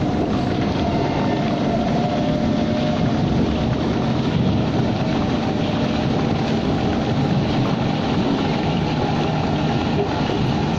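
Steady running noise of a metro train heard from inside the carriage as it travels along the track, a constant rumble and hiss with a faint tone above it.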